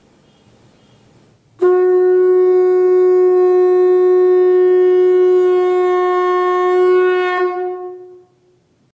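A conch shell (shankha) blown in one long, loud, steady note with a rich, buzzy tone, starting suddenly about a second and a half in and held for about six seconds, then sagging slightly in pitch and dying away.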